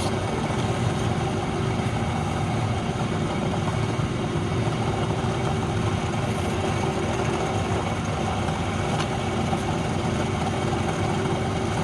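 Wood lathe running steadily, an even mechanical hum.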